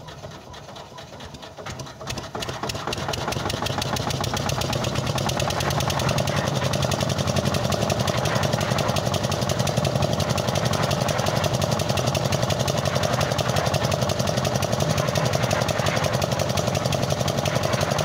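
Concrete mixer's small engine starting about two seconds in, picking up speed, then running steadily with a fast, even firing rhythm.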